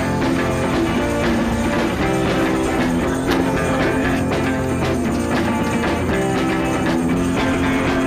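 Background music: a rock-style track with guitar, playing at a steady level.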